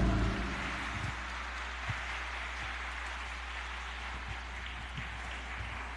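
The last chord of the music fades out. It gives way to a steady hiss-like background noise with a constant low hum and a few faint soft thumps.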